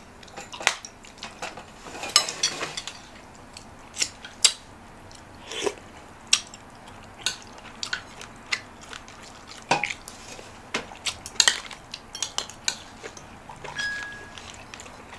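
Cutlery clinking against dishes during a meal: a string of sharp, irregular clinks.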